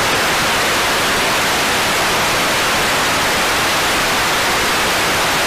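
Loud, steady television static hiss, a white-noise sound effect with no change in level.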